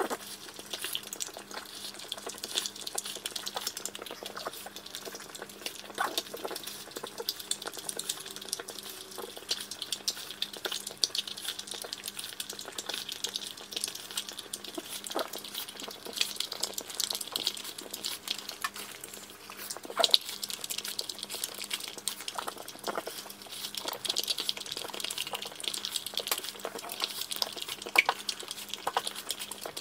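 French bulldog eating moist food from a bowl: steady wet smacking and chewing with many small sharp clicks.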